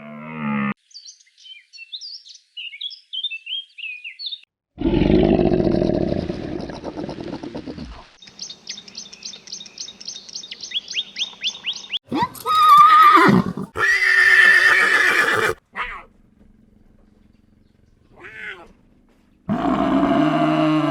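A string of short animal calls in quick succession. High bird-like chirps come first, then a loud low call, a fast run of repeated high trills, then a horse neighing, and a loud low roar near the end.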